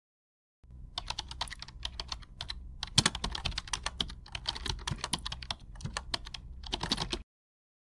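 Computer keyboard typing: a quick, uneven run of keystroke clicks accompanying on-screen text being typed out. It starts about half a second in and stops abruptly near the end.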